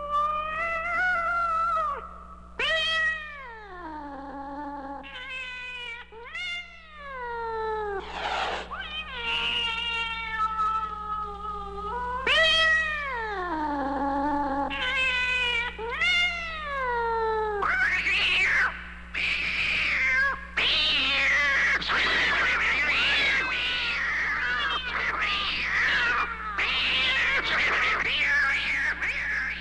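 Cats fighting: long drawn-out yowls that swell and slide down in pitch, then from about two-thirds through, a dense run of harsher, noisier screeches. A steady low hum runs underneath.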